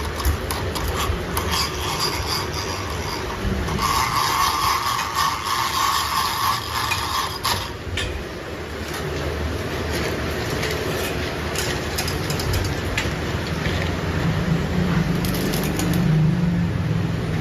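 Metalworking machinery running: a high, steady whine with scraping and rapid clicks for the first seven seconds or so, giving way to a lower, even machine hum.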